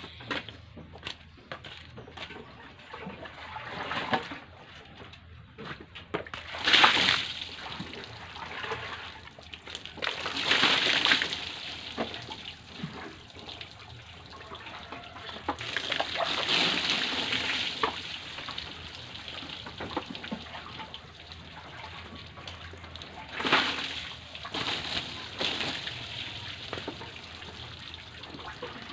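Water running off a freshly washed goat and splashing onto wooden pallet boards, a steady trickle with several louder splashing surges.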